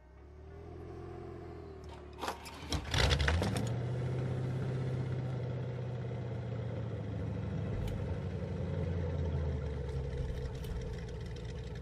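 A car engine starting: a short wavering whine, a burst of clattering clicks as it catches about three seconds in, then the engine running steadily.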